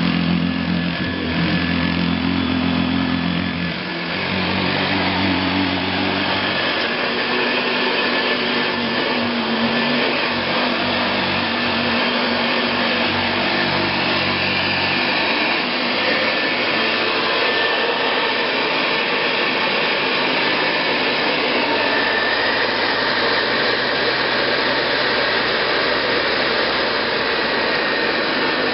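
Hoover Model 33 upright vacuum cleaner running steadily with a faint whine. About four seconds in, its low hum drops away with a brief dip in loudness.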